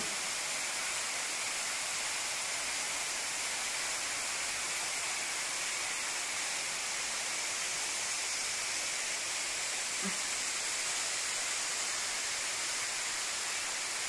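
Steady rush of a small waterfall splashing into a rock pool in a narrow sandstone gorge, an even hiss of falling water.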